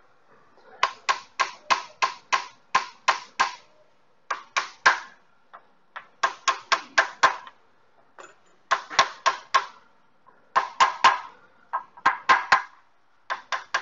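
Hammer tapping on a large metal socket used as a seal driver, pressing a new crankshaft front seal into an engine's timing cover. Quick metallic knocks, about three to four a second, come in runs of a few to nine strikes with short pauses between.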